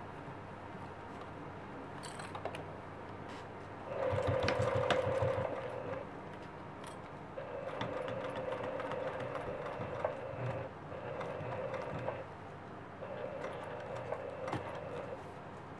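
Juki sewing machine running in four short stretches with brief stops between them, as it stitches slowly across a bag corner through several layers.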